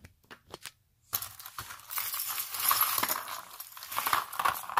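Costume jewelry, necklaces and bracelets, clinking and rattling as it is handled. A few light clicks at first, then from about a second in a dense, continuous clatter of chains and beads knocking together.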